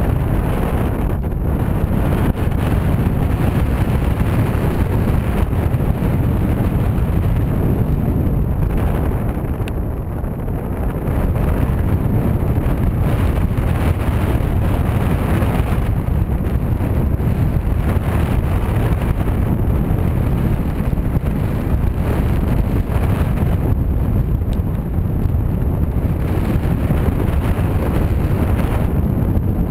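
Wind rushing over the microphone of a harness-mounted camera in paraglider flight: a loud, steady, deep buffeting with no engine note.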